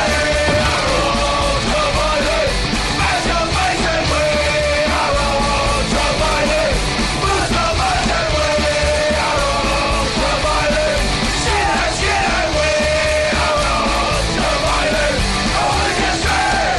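Psychobilly song with punk influences: shouted vocals over loud electric guitars and a steady pounding beat.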